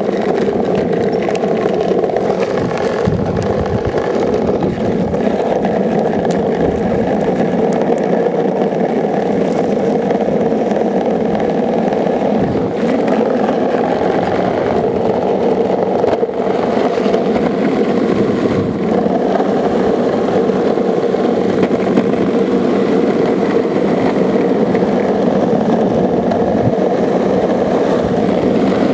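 Longboard wheels rolling on asphalt at speed: a steady, unbroken roar, with wind buffeting the microphone.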